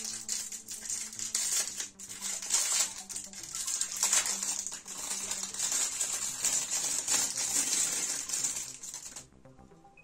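Clear plastic bag crinkling and rustling in the hands as a new laptop CPU fan is unwrapped; the crinkling stops about nine seconds in.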